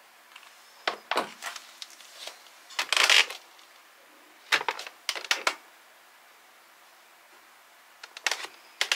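Scattered short taps, clicks and rustles from someone moving about barefoot and stepping onto a smart bathroom scale. They come in irregular clusters about a second in, around three seconds, around five seconds and near the end, with a quiet room between them.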